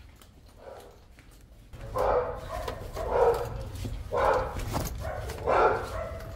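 A dog barking repeatedly, about one bark a second, starting about two seconds in after a few softer sounds.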